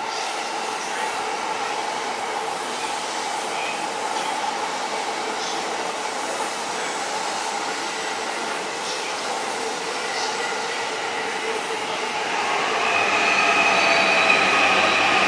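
JR East commuter electric train running along the platform: a steady rumble of wheels on rail with some wheel squeal, loudest around the middle. About thirteen seconds in, a whine of several steady tones sets in.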